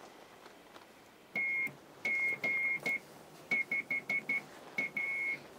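Morse code keyed by hand on a telegraph key, heard as a single high, clear tone switching on and off in dots and dashes. It starts about a second and a half in.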